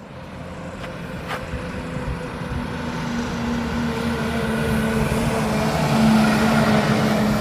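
Mack garbage truck's diesel engine approaching, its steady drone growing louder throughout.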